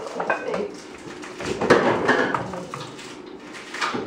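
Light clinks and knocks of toy pots and utensils at a child's play kitchen, with a few short high-pitched vocal sounds about halfway through.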